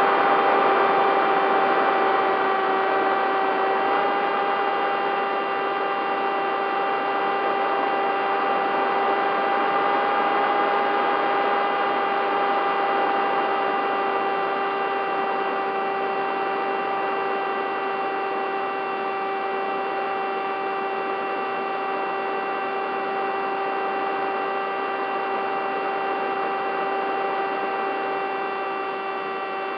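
Bixler 3 model plane's electric motor and pusher propeller in flight: a steady whine with a constant rush of air, pitch shifting slightly about four seconds in.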